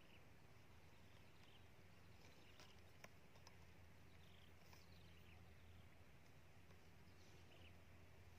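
Near silence: faint outdoor background with a steady low hum and a few faint, short high chirps, and one sharp click about three seconds in.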